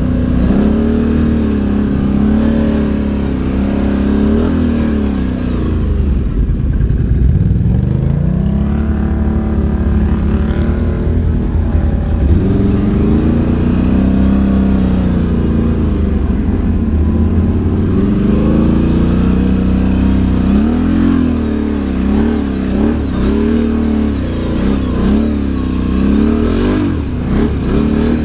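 Can-Am ATV engine running under load, its pitch rising and falling as the throttle is opened and eased, with quick repeated revs near the end.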